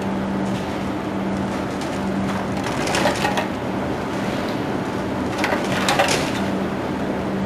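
IQF tunnel freezer running with a steady machine hum, its mesh conveyor carrying frozen mango slices. Hard crackling and clattering bursts about three seconds in and again near six seconds, from the frozen fruit pieces on the belt.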